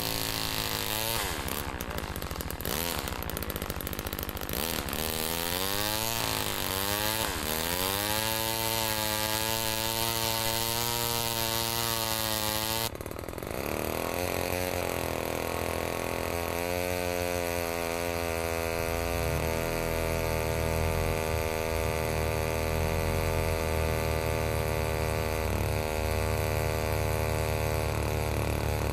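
Two-stroke chainsaw engine driving a Cobra chainsaw-powered winch: revved up and down several times, then held at a steady high speed. About 13 seconds in the sound drops abruptly and carries on at a steady run.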